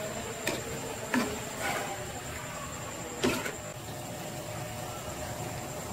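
Spatula stirring sliced onions in a nonstick wok: four sharp clacks of the spatula against the pan in the first three and a half seconds, over a steady hiss.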